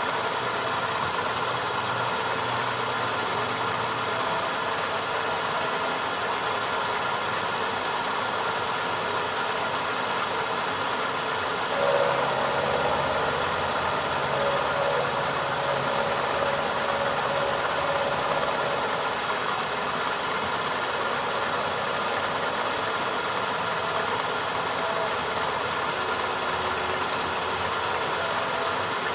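A machine motor running steadily. About twelve seconds in its sound deepens slightly, with a faint steady tone added for several seconds, and there is one sharp click near the end.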